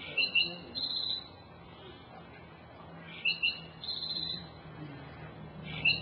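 Recorded black-throated sparrow song played back: a few short, clear introductory notes followed by a rapid high trill. The phrase is repeated about every three seconds: two full songs, with a third beginning near the end.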